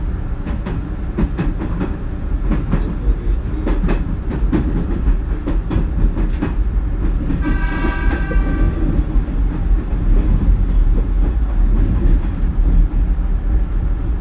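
Hanshin 9000-series electric train running at speed, heard from inside the car: a steady low rumble with the clickety-clack of wheels over rail joints, and a brief pitched tone about halfway through.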